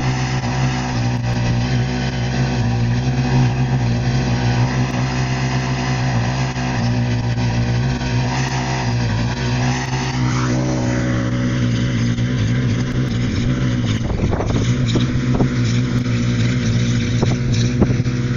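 1974 Allis-Chalmers 712H garden tractor's engine running steadily under load, driving its 42-inch single-stage snow blower. The tone shifts about ten seconds in, with a brief rising sound.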